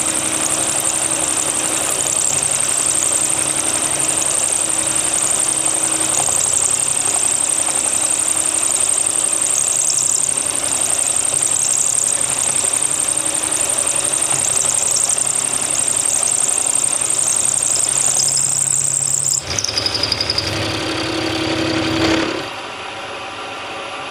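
Milling machine with a half-inch roughing end mill, hand-fed, cutting a metal plate: a steady cutting noise with a high whine. About 19 seconds in the whine drops in pitch, and about 22 seconds in the cutting stops and the sound falls to a quieter running.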